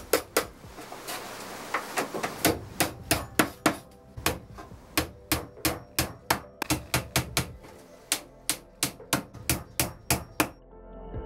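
Claw hammer striking a solid pine drawer side, knocking the dovetailed drawer together: a long run of sharp wooden knocks in quick groups of several blows with short pauses between.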